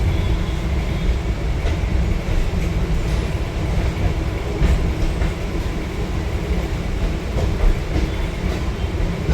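Moving suburban local train heard from inside the carriage: a steady low rumble with occasional faint clicks of the wheels over rail joints.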